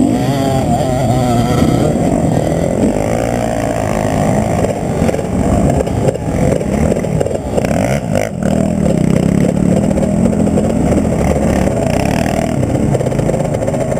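Husqvarna TE 250 enduro motorcycle engine running close to the microphone, its revs rising and falling as it is ridden over a dirt trail.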